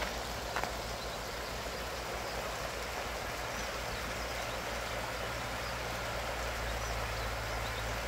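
Shallow mountain stream running over rocks: a steady rush of water, with a low rumble underneath.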